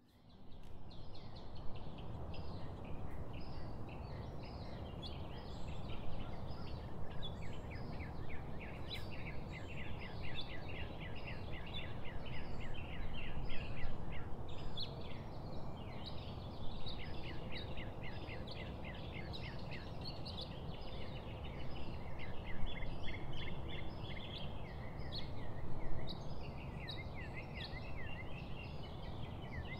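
Many small birds chirping continuously in a dense chorus of short, quick calls, over a steady low background noise.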